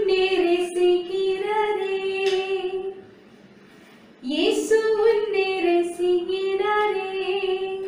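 Young voices singing a children's action song unaccompanied, in long held notes. The first phrase ends about three seconds in, and the next begins about a second later.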